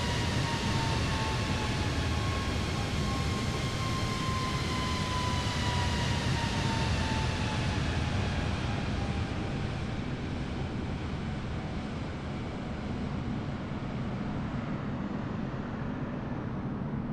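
Jet airliner's engines during takeoff, heard as a steady deep roar with a high whine that slowly falls in pitch. The hiss fades over the second half as the aircraft draws away.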